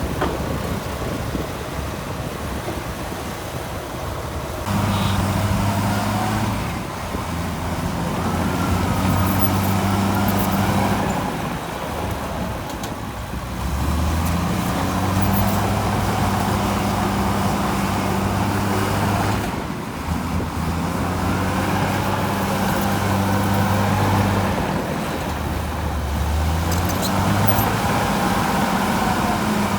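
Heavy diesel construction machinery running. Its engine note comes in strongly about five seconds in, then holds at steady pitches that shift up and down every few seconds.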